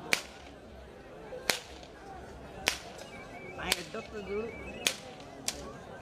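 Six sharp whip cracks, about one a second, as handlers urge on a pair of bullocks hauling a weighted load.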